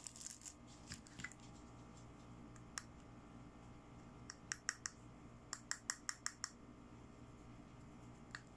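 Sharp little plastic clicks and taps from fingers handling a small toy eyeshadow compact: a few scattered clicks, then a quick run of about ten around the middle.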